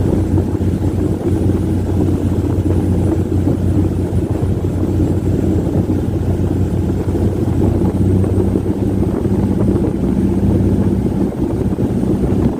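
Diesel engines of wooden Amazon river launches running hard in a race: a loud, steady drone. A second engine tone joins about eight seconds in.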